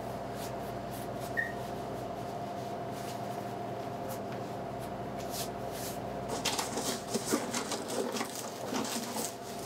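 Steady room hum carrying one constant tone. From about six and a half seconds in, gloved hands crinkle and rustle the foil liner inside a vaccine thermal shipping box.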